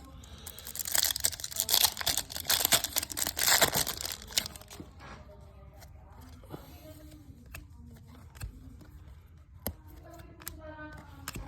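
A trading-card pack wrapper being torn open, a crinkly rip lasting about four seconds, followed by scattered light clicks of the cards being handled.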